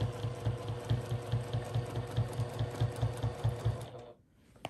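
Juki sewing machine stitching free motion quilting at an even pace, several needle strokes a second over a steady motor hum. It stops about four seconds in.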